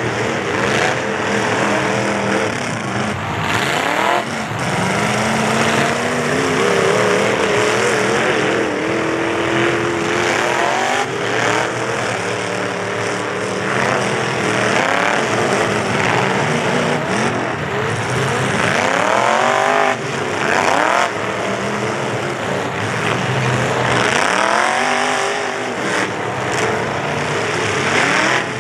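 Several full-size pickup truck engines revving hard, their pitch rising and falling over and over, with a few sudden crunching collisions mixed in.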